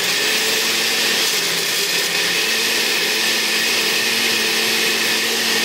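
Powerful countertop blender running loudly at a steady speed, its motor whirring as it purées bananas, cacao, oats and water into a thick smoothie.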